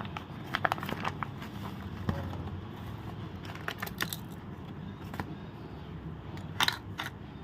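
Light scattered clicks and rustling as misri (rock sugar) is handled and put into a bowl, with a few sharper clicks near the end.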